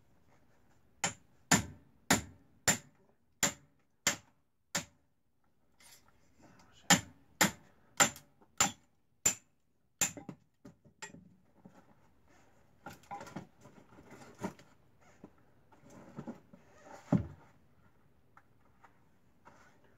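Hatchet splitting firewood into kindling: two runs of sharp blows about half a second apart, seven or so in each. Then the split sticks clatter and knock together as they are gathered, with one louder knock near the end.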